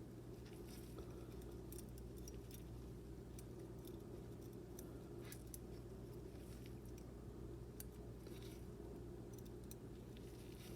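Faint, scattered light clicks and small metallic clinks of small knife parts and tools being handled, over a steady low hum.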